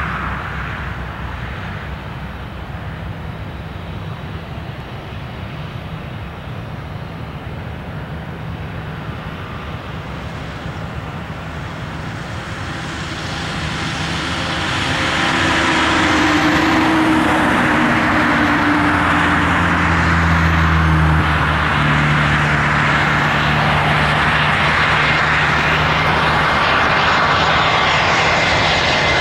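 Airbus A320 jet airliner on final approach with its two IAE V2500 turbofans at low approach thrust. The engine noise swells about halfway through as the jet draws near, then holds as a steady rushing sound over a low drone that shifts in pitch.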